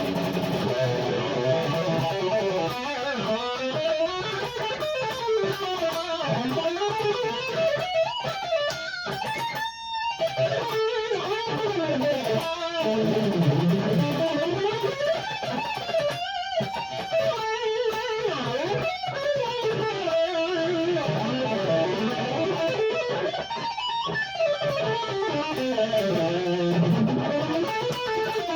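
Electric guitar playing fast melodic runs that climb and fall.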